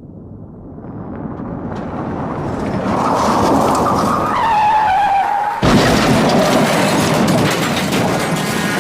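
Vehicle sound effect: a rushing noise that builds up, with a squeal gliding down in pitch about four seconds in. It cuts abruptly to a louder rushing sound about five and a half seconds in, and another squeal starts near the end.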